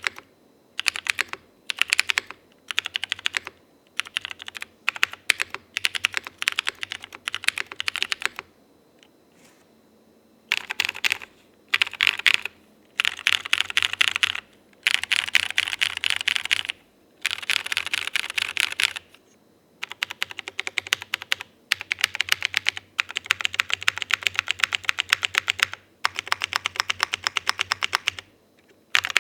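Fast typing on a tenkeyless custom mechanical keyboard with Cherry MX Falcon tactile switches, a polycarbonate plate and GMK keycaps: rapid runs of keystrokes in bursts with short pauses, and a longer pause about nine seconds in.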